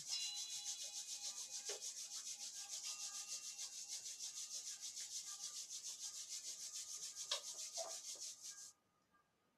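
Palms rubbed together vigorously to warm them: a fast, even swishing of skin on skin, several strokes a second, that stops abruptly near the end.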